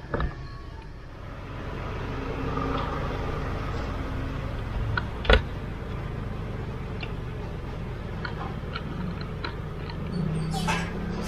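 Small clicks and rustles of car wiring and plastic dashboard trim being handled, with one sharp knock about five seconds in, over a steady low hum.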